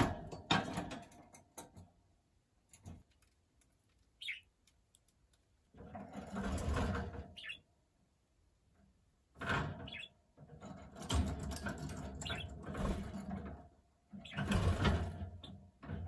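Pet budgerigar's scratchy warbling chatter in four bursts of one to three seconds, with a couple of short high chirps between them.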